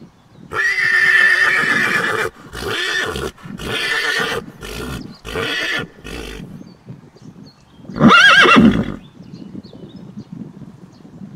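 Horse whinnying: a long whinny that breaks into a run of shorter pulses, then a second short whinny a couple of seconds later.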